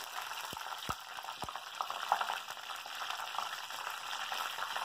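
Fresh curry leaves sizzling and crackling in hot oil in a clay pot, along with spluttering mustard seeds and fenugreek: a steady frying hiss with three sharp pops in the first second and a half.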